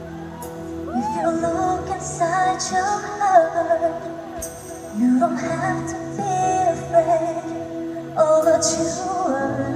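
A woman singing a melody into a microphone over sustained backing chords, with held notes that waver in pitch and short breaks between phrases.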